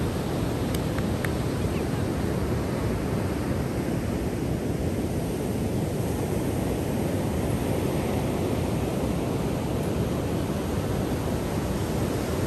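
Ocean surf breaking on the beach, mixed with wind blowing across the microphone: an even, steady rush of noise with no breaks.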